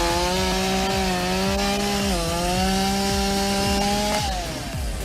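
Two-stroke chainsaw running at high revs as it cuts through a tree trunk, its pitch dipping briefly under load about two seconds in. Near the end the engine winds down.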